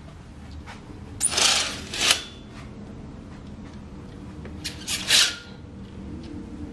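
Sheer window curtains being drawn open by hand, sliding along their rail: two swishes, about a second in and again about five seconds in, over a low steady hum.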